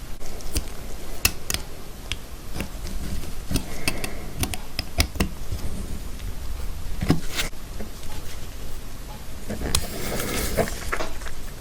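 Light metallic clicks and clinks of a watch and small watchmaking tools being handled on a workbench, scattered and irregular, with a quick flurry of clinks near the end.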